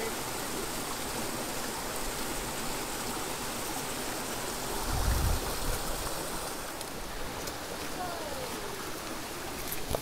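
Creek water running steadily over a small waterfall, with a brief low thump about five seconds in.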